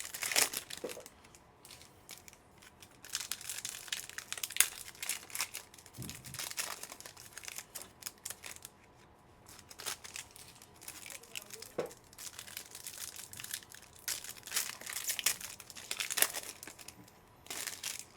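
Trading card pack wrappers crinkling and tearing open in irregular bursts, as packs of football cards are ripped open and handled.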